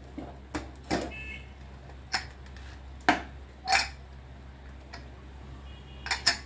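Metal pressure cooker lid being twisted loose and lifted off the pot: a string of separate sharp metal knocks and clicks as the lid and its handle strike the pot rim.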